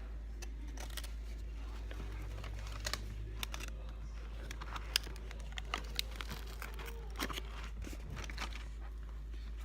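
Light crinkling and scattered sharp clicks over a steady low hum.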